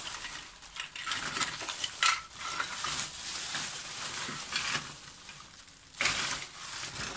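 Small hard plastic toy accessories (Action Man guns and equipment) clicking and clattering against each other as they are rummaged through by hand, with a continuous rustle and a couple of sharper knocks about two seconds in and near the end.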